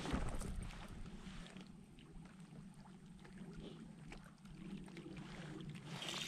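Quiet sounds of a fishing kayak on the water: faint lapping and hull noise with a few small knocks and clicks of gear, and a sharp knock at the start. Near the end a thin high whir sets in from the spinning reel as a fish is hooked.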